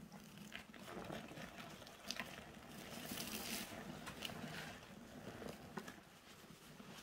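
Wet, sudsy grout sponges squeezed and wrung in gloved hands: the foam crackles and squelches as it is pressed out, a crunchy fizzing sound that swells about three seconds in and then eases.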